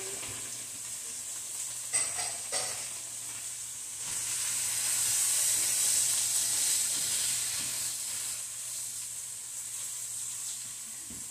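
Vegetables sizzling in a frying pan as they are stirred, with a couple of clicks of the utensil against the pan about two seconds in; the sizzle swells louder around the middle.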